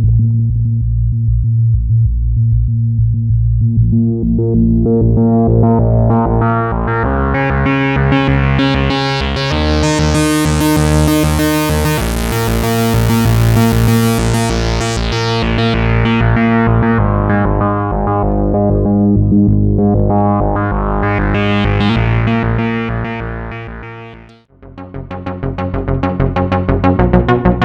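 Moog Source monophonic analog synthesizer holding deep, bass-heavy notes while its filter sweeps open, growing brighter to a peak, then closing and opening again. About 24 seconds in the sound fades out and a new patch starts with fast repeating notes.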